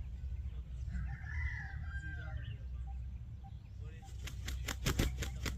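Aseel rooster beating its wings in a quick run of about eight flaps near the end, after a brief high call a second or so in. A steady low rumble runs underneath.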